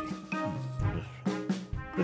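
Bouncy cartoon background music with a brass lead over a bass line that steps from note to note.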